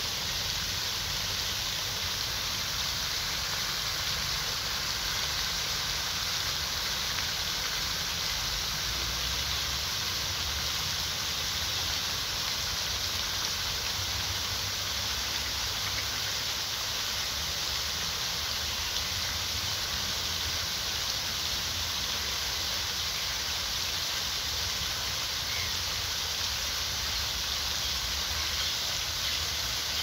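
Falling water splashing steadily into a pond, an even rushing hiss with a low rumble underneath.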